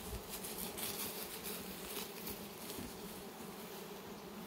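Many honeybees flying around torn-down hives, a steady buzzing hum.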